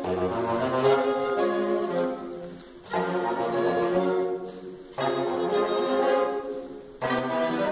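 Saxophone quartet playing sustained chords in phrases; three times a phrase dies away and the next chord comes in sharply, about three, five and seven seconds in.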